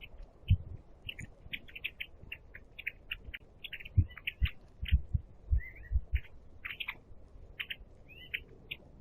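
Small birds chirping: many short, quick chirps overlapping all through, with several dull low thumps in the middle.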